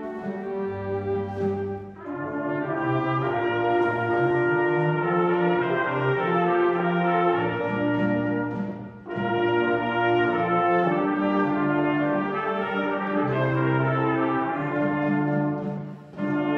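Concert wind band of woodwinds and brass playing held chords, with brief breaks between phrases about two, nine and sixteen seconds in.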